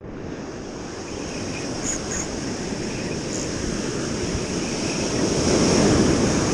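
Surf breaking and washing up a sandy beach, with wind. The rush of water swells to its loudest about five to six seconds in, then eases.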